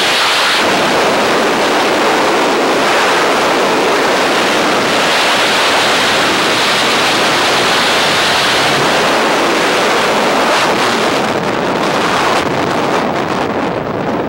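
Loud, steady rush of freefall wind buffeting the camera microphone during a tandem skydive. Near the end it turns gusty and uneven.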